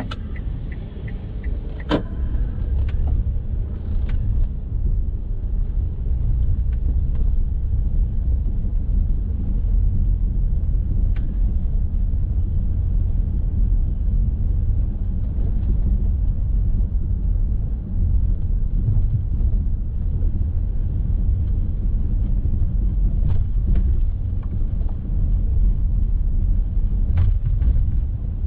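Steady low road and engine rumble of a car being driven, recorded from inside by a dashcam, growing a little louder a few seconds in. A run of light even ticks sounds in the first second, and there is a single sharp click about 2 seconds in.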